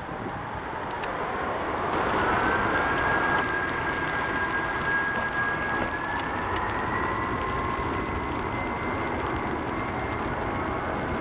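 Boeing 747-400 jet engines running with a whine that climbs in pitch over the first two seconds, holds, then climbs again about six seconds in as they spool up, over a steady rushing noise.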